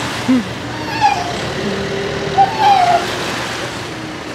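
Small harbour waves washing onto a concrete shore, with a few short calls that rise and fall in pitch over the wash.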